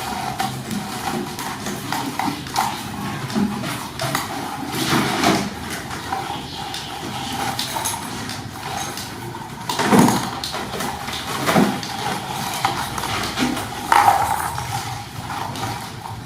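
Kittens meowing, with a few louder cries about ten, eleven and fourteen seconds in, over a steady background noise.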